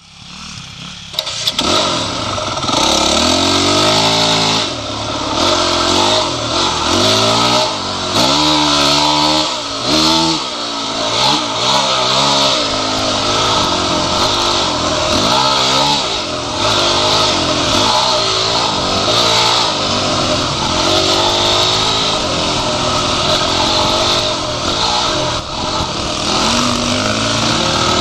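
Dirt bike engine close to the microphone, revving up and falling back again and again as the rider works the throttle through the gears on a trail ride, with a constant hiss of wind over it. The sound comes in suddenly about a second in.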